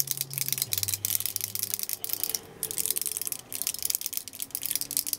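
A spray bottle of Cover FX Illuminating Setting Spray shaken hard, its mixing ball rattling inside in rapid clicks, several a second, with a brief break about two and a half seconds in.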